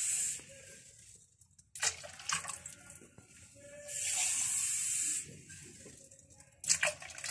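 Water being poured into an aluminium pot of tomato broth, in two pours. The first ends just after the start, and the second lasts about a second and a half from about four seconds in. A few light knocks fall between the pours and near the end.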